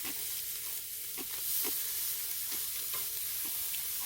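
Pork neck sizzling on a grill over a charcoal brazier: a steady hiss with scattered small sharp pops.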